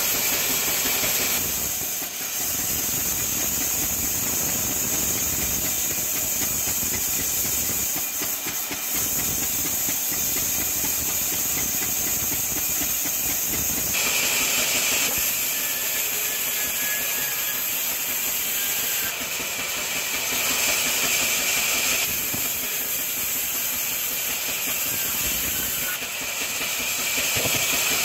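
Diesel-powered band sawmill running, its blade cutting lengthwise through a wooden log with a steady high hiss over the low hum of the engine.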